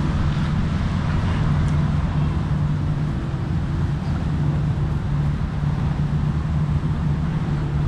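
Steady low rumble of road traffic with a constant low hum.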